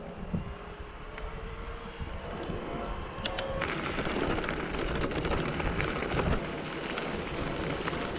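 Bicycle riding: tyres rolling over the road and then crunching over gravel, over a steady low rumble. The noise grows louder and hissier about three and a half seconds in.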